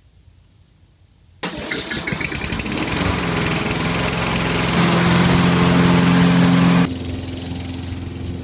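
Toro Recycler 6.5 HP push lawnmower engine coming in suddenly about a second and a half in and running, its pitch climbing for a couple of seconds and then holding steady. About seven seconds in it drops abruptly quieter but keeps running.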